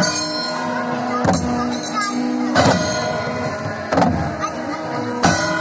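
Devotional kirtan music: a heavy drum stroke about every 1.3 seconds, ringing after each, under sustained tones and chanting voices.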